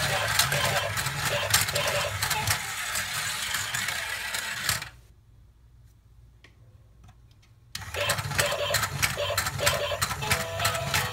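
Battery-powered plastic staircase track toy running: its small electric motor whirs under a fast stream of clicks from the moving stairs. About five seconds in, the sound drops almost to silence for nearly three seconds, with only a few faint clicks, then the motor and clicking start again.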